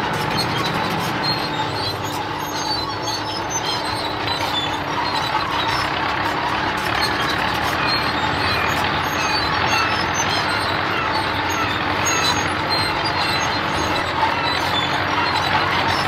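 Heavy road roller's diesel engine running at a steady, unchanging drone as it rolls along, with short high chirps scattered over it.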